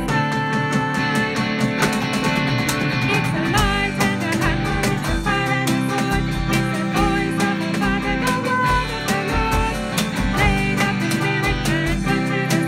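Worship song: singing over strummed guitar, with a steady low beat underneath.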